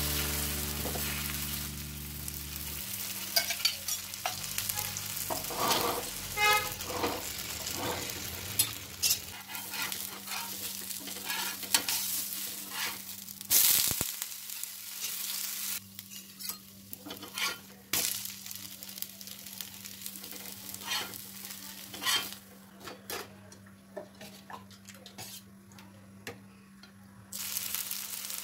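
Rava dosa batter frying on a hot dosa tawa: steady sizzling with scattered crackles and pops. Near the end the sizzling suddenly gets louder as fresh batter spreads on the hot pan.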